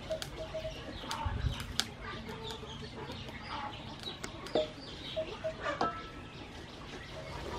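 Wooden spatula stirring melting palm sugar in a metal wok, with scattered light clicks and scrapes, while chickens cluck in short calls in the background.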